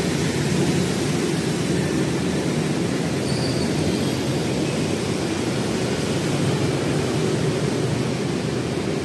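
Steady low rumble of street traffic, an even background noise with no clear tones.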